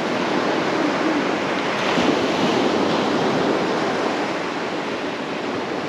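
Ocean surf breaking and washing up a sandy beach, a steady rush of water noise.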